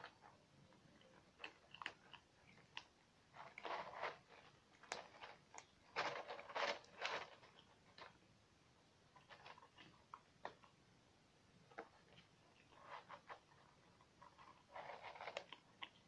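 Several cats eating from a plastic bowl: faint, irregular crunching and chewing in clusters, busiest about six to seven seconds in.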